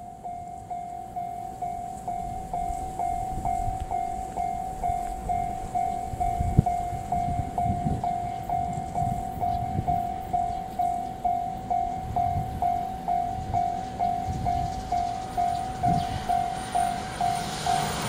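Japanese level-crossing warning bell ringing an even electronic ding about twice a second, while a JR Shikoku 6000 series electric train approaches; its rumble grows louder near the end. A single sharp knock comes about six and a half seconds in.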